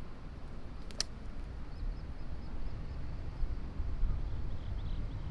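Wind rumbling on the microphone, with one sharp click about a second in and faint bird chirps later on.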